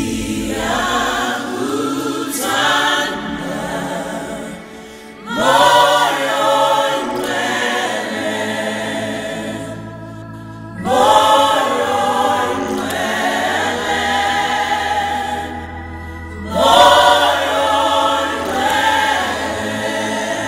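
Gospel choir singing in four phrases about five seconds apart, each opening with a loud swell of voices.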